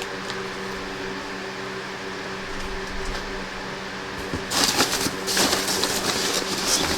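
A steady low hum in the room, then from a little past halfway a burst of rustling, crinkling and light knocks as packaging and parts are handled.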